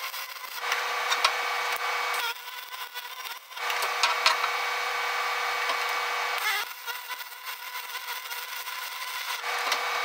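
MIG welding arc laying silicon bronze filler into a cracked cast iron exhaust manifold: a steady crackling sizzle in short runs, one of about two seconds, a longer one of about three seconds, and a third starting near the end, with quieter pauses between.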